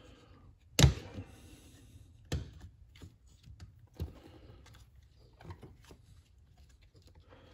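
Handling clicks and knocks from the internals of a HART cordless impact driver, its motor, gearbox and trigger switch being moved and seated in the plastic half-shell of the housing. A sharp knock about a second in is the loudest, with two more at about two and four seconds and light ticks between.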